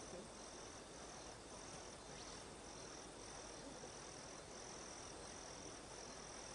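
An insect chirring faintly in short, evenly spaced pulses, just under two a second, over a steady hiss.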